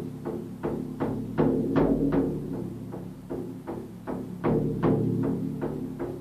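Hand-held frame drum beaten steadily with a padded beater, about two and a half strokes a second, each stroke ringing on in a low boom. A few strokes in the middle and near the end are louder.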